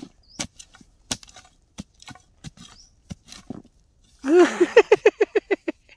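Digging spade chopping into forest soil and roots while a wild yam is dug out, in a series of sharp knocks about two a second. Near the end a louder pitched call breaks into a quick run of about nine short pulses.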